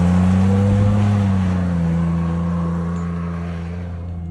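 Pickup truck engine running, its pitch rising a little about a second in and then slowly easing down.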